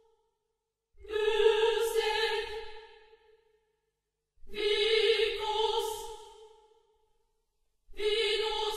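Intro music: a choir-like sung voice holding one steady note, three times, each about two seconds long and fading away, with a second or so of silence between.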